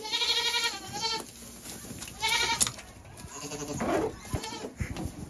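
Goats bleating: a loud, wavering bleat of about a second, then a shorter one about two seconds in, with a fainter call and a few low knocks near the end.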